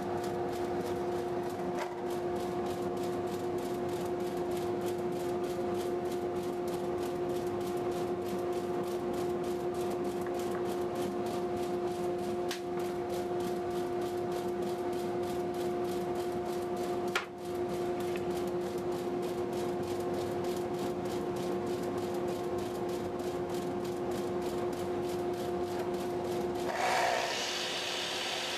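A woodshop dust collector running with a steady, even hum. A couple of light clicks come through, and near the end the hum gives way to a higher, hissing rush.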